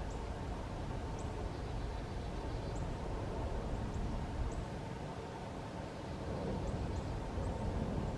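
Steady low rumble of wind on the microphone, with faint, short high chirps of a small bird scattered through, about eight in all.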